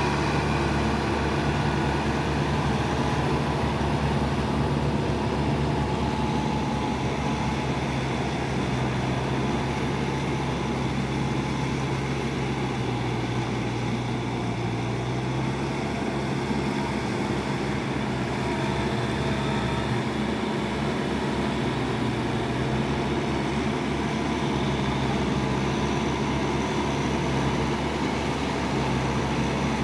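Kubota tractor's diesel engine running steadily under load while working a wet rice paddy. Its note dips a little around the middle and then comes back up.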